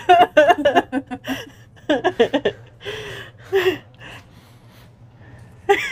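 A person laughing helplessly in bursts, with gasping breaths between them, dying down about four seconds in.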